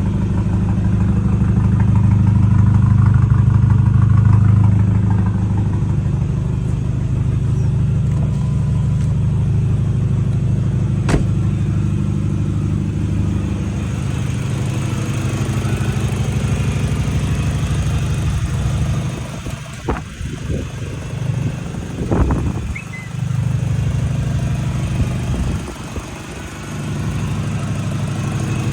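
Audi A4 B6's engine running with a steady low hum. One sharp click comes about eleven seconds in, and in the last third the sound dips and swells several times before settling again.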